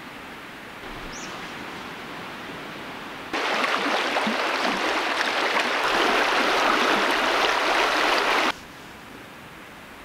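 Creek water running in a steady rush. About three seconds in it jumps abruptly to a much louder, closer rush that stops just as suddenly about five seconds later. One brief high chirp about a second in.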